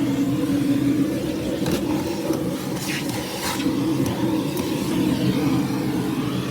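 Vacuum cleaner running with a steady hum as its nozzle works over car carpet, with a few brief scratchy clicks along the way.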